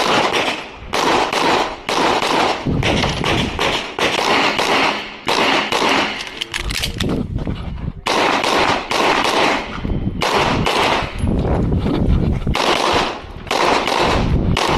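Rapid pistol fire from an Open-division Glock shooting minor power factor during a USPSA course of fire: fast strings of shots broken by a few short pauses.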